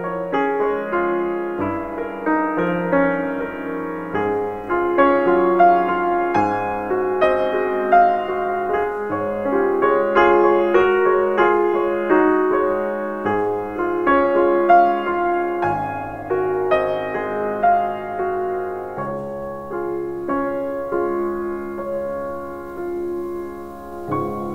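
Solo piano music, single notes and chords struck and left to ring. It thins out and grows softer in the last few seconds.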